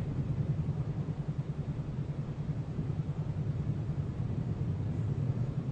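A steady low rumble with a fluttering, wavering texture and no distinct clicks or taps.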